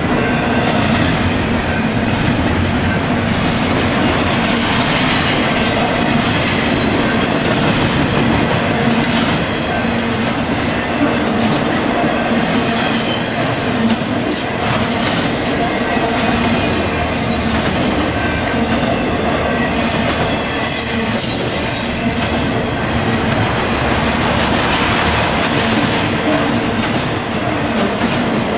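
Intermodal freight cars carrying double-stack containers and highway trailers rolling past close by: a steady loud rumble of steel wheels on rail, with scattered clicks and knocks as wheels cross rail joints.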